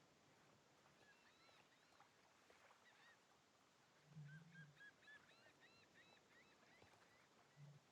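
Near silence, with faint high chirps scattered through and a short low hum about four seconds in and again near the end.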